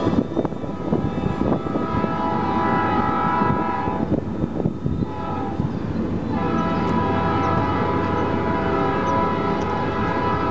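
Diesel locomotive air horns of the train's lead SD40-2s sounding a long chord blast, a pause, then a second long blast that is still going at the end. Under the first blast, passenger cars rumble and clatter past on the rails, fading as the train pulls away.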